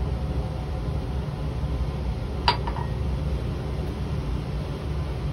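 A single short glass clink about two and a half seconds in, as a glass beaker is handled, over a steady low hum of room ventilation.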